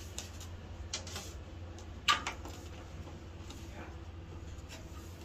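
Clicks and knocks of frame moulding being handled and set against the metal corner fence of a frame-joining underpinner, with one sharp clack about two seconds in followed closely by a lighter one, over a low steady hum.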